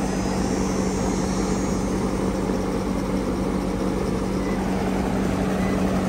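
Running central air-conditioning condensing unit: a steady rush of fan air with a constant low hum from the compressor.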